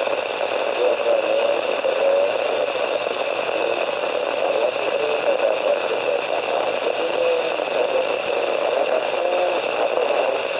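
Amateur radio transceiver speaker hissing with static as a weak station transmits: a steady rush of noise with faint wavering tones under it, an unreadable signal. The hiss opens suddenly and cuts off sharply near the end as the transmission drops and the squelch closes.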